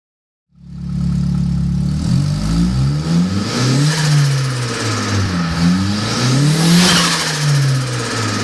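Nissan CA18DET turbocharged four-cylinder engine running and being revved up and down several times, with a hiss of turbo flutter as the throttle closes. It is on its first run on a homemade wiring harness and runs a little rough.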